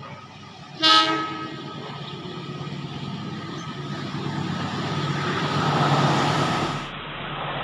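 A diesel-electric passenger locomotive sounds one short horn blast about a second in. Then the engine and the rumble of the train's wheels grow steadily louder as the train comes close, loudest near the end.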